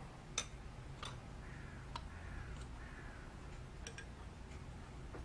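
Faint, scattered metallic clicks and light knocks, a second or so apart, as the cylinder head of a Briggs & Stratton riding-mower engine is worked loose by hand and lifted off the block. A faint wavering high tone runs through the middle.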